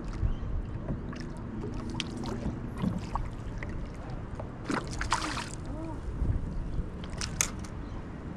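Water lapping and sloshing against a plastic kayak hull, with scattered small knocks and a brief splashy rush about five seconds in.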